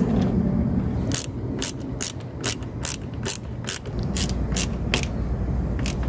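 Ratcheting screwdriver clicking as screws are driven into a keyless RV door lock: a run of sharp clicks, about two or three a second, starting about a second in.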